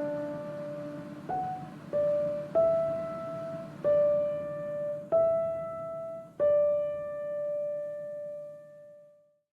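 Background piano music: a slow run of single notes, each struck and left to ring. The last note is held and fades out about nine seconds in.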